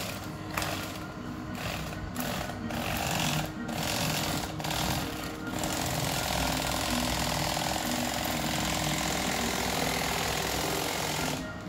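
Electric fillet knife buzzing in several short on-off bursts, then running steadily for about six seconds as its reciprocating serrated blade saws through a peacock bass along the backbone, cutting off near the end.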